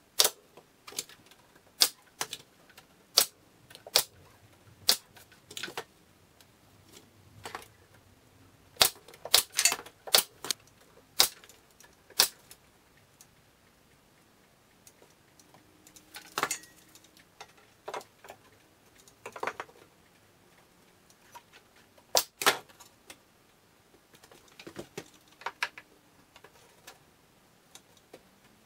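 Pneumatic nail gun driving nails into a cabinet box: about twenty sharp shots, roughly one a second at first, then in irregular groups with a pause of a few seconds about halfway through.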